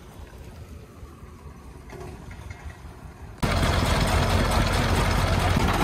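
Công nông farm truck's single-cylinder diesel engine running: faint at first, then suddenly much louder about three and a half seconds in, with a deep steady throb.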